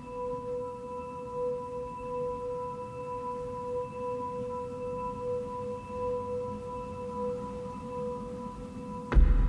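A long held musical drone: one steady pure tone with its octave above, pulsing gently. Near the end a sudden loud low boom cuts in.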